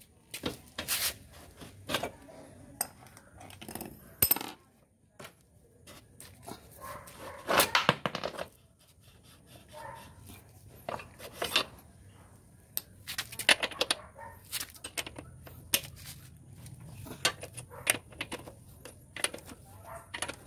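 Spanner and wrench clinking and scraping on a motorcycle's rear axle and chain adjuster bolts: a string of sharp metallic clicks and clanks at uneven intervals.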